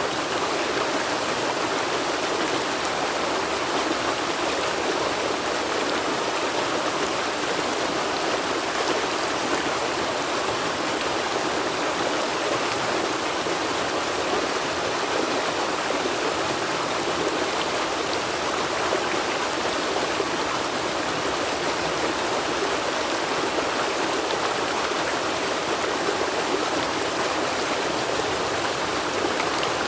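River water flowing over rocks, a steady rushing and splashing with no breaks.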